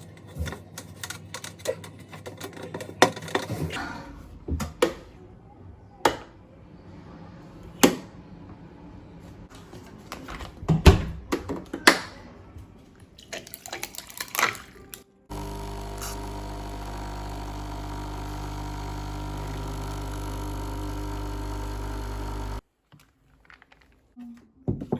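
Objects being handled, giving scattered clicks and knocks, then a small machine humming steadily for about seven seconds, starting and stopping abruptly.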